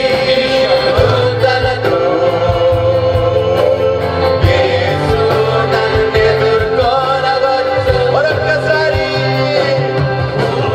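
Worship music: a Telugu devotional song, with singing over keyboard, bass and drums keeping a steady beat.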